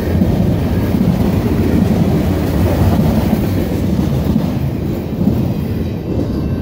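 Last cars of a loaded freight train rolling past on the rails: a heavy low rumble of wheels on track that eases off near the end as the final car goes by.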